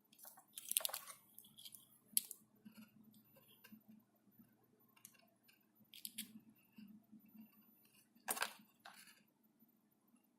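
Handling of a phone's box and packaging: scattered light clicks, taps and rustles, the loudest a sharp click about eight seconds in.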